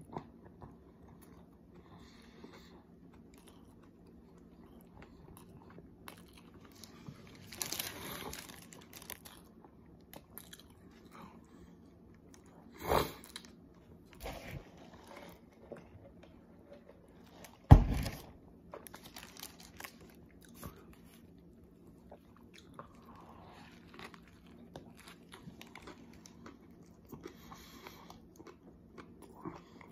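A person biting into and chewing a fast-food sandwich close to the microphone, with crunching and some rustling of the paper wrapper. A few louder sudden sounds stand out, at about 8, 13 and 18 seconds in, the last the loudest.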